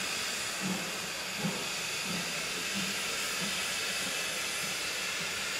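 LMS Ivatt Class 2MT 2-6-2T steam tank locomotive standing with steam hissing steadily from it.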